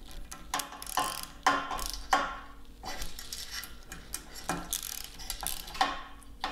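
Hand socket ratchet clicking in short rasping strokes as it tightens a 1/4-20 bolt joining aluminium T-slot extrusion sections, with a couple of louder knocks about one and a half to two seconds in.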